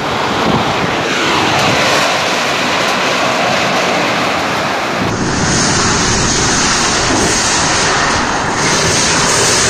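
Strong monsoon wind and heavy rain, a loud, steady rushing noise with wind buffeting the microphone. The sound changes abruptly about halfway through.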